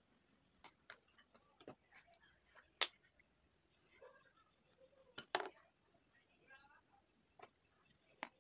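Faint, steady high-pitched insect chirring, with scattered light clicks and taps, the sharpest about three seconds in and just past five seconds.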